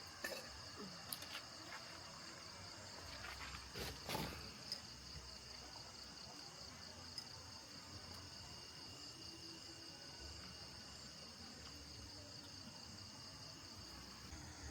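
A steady, high-pitched insect chorus trilling continuously, with a few faint clicks near the start and about four seconds in.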